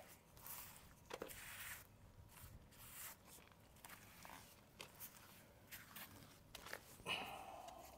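A grout float smearing and scraping grout across small mosaic tiles: faint, repeated rasping strokes with a few light clicks, and a longer scrape near the end.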